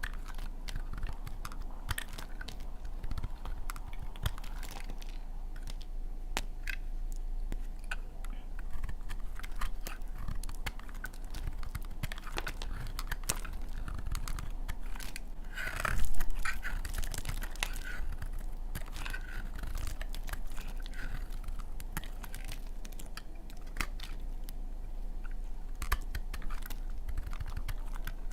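Blade cutting through dry laundry soap: a run of small crisp crunches and clicks, with one louder crunch about sixteen seconds in.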